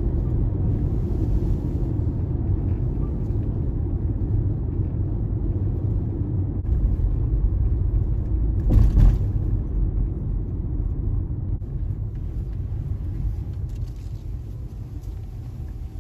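Steady low rumble of a car's road and engine noise heard from inside the cabin while driving, with one short thump about nine seconds in. The rumble grows quieter over the last few seconds.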